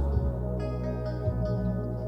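Slow ambient worship music: long held chords over a steady low bass note, with the notes shifting a couple of times.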